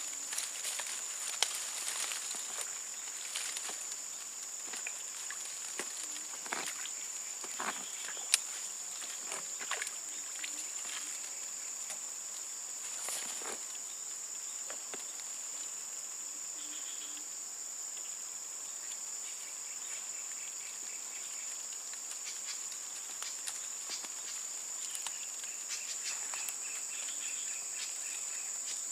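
Insects keeping up a steady high-pitched drone, with scattered clicks, knocks and rustles, the sharpest about a second and a half in and about eight seconds in.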